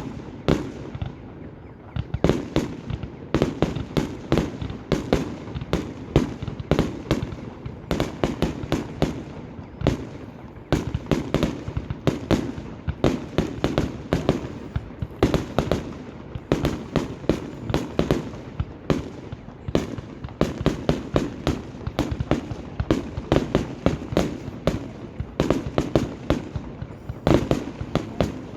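Aerial fireworks display: a dense, continuous barrage of shell bursts and crackling reports, with brief lulls about a second in and around ten seconds in.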